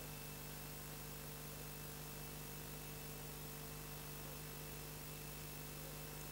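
Faint steady electrical hum over an even hiss, the background of an old video-tape recording; no sound of the screwdriver work comes through.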